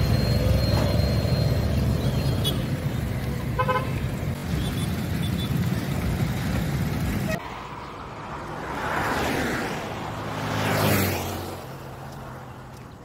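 Steady engine and road rumble of a motorcycle riding through town traffic, with a vehicle horn tooting briefly about four seconds in. The sound cuts off suddenly after about seven seconds and gives way to a quieter roadside, where two vehicles swell past one after the other.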